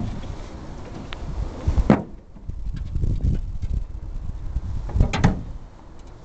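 Sharp knocks and thumps over a low rumble: one about two seconds in and a quick pair around five seconds.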